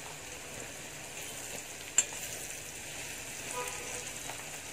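Onions and garlic frying in coconut oil in a kadai, a steady sizzle, with one sharp click about two seconds in.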